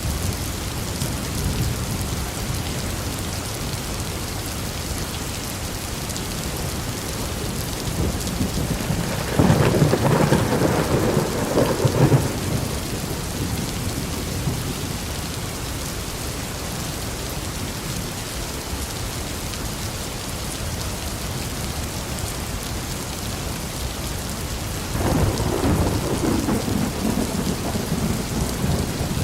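Thunderstorm: steady rain with two rolls of thunder, one lasting about three seconds a third of the way in, the other starting near the end and still going.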